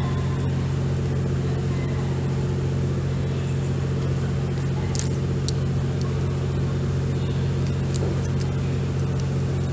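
Steady, unchanging low mechanical hum, with a faint murmur of voices and a couple of small clicks.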